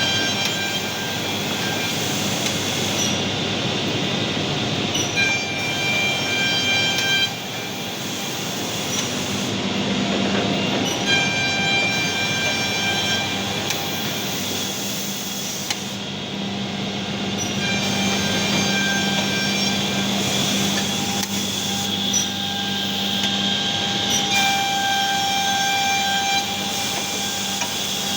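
KDT Edgetech edge banding machine running, a continuous mechanical whirr. High whining tones start and stop every few seconds over it, and a steady low hum joins about a third of the way in.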